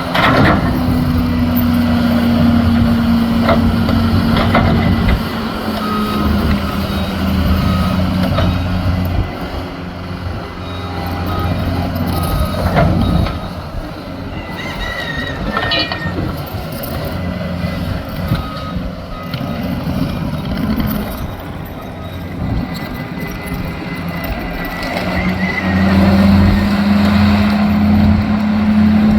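Bucket loader's engine working under load, its pitch sagging and then rising again as it revs up near the end, with a backup alarm beeping and a few sharp clanks.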